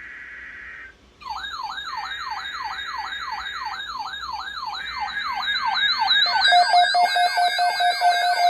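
Electronic siren yelp sweeping rapidly up and down, about three sweeps a second, joined around six seconds in by a steady pulsing tone and growing louder. Before the siren starts, a brief steady electronic tone cuts off about a second in.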